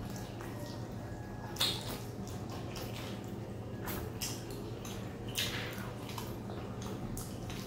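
Wet eating sounds close to the microphone: chewing, sucking and lip smacks of people eating curry-soaked food by hand, with two sharper smacks, one about a second and a half in and one past five seconds. A low steady hum runs underneath.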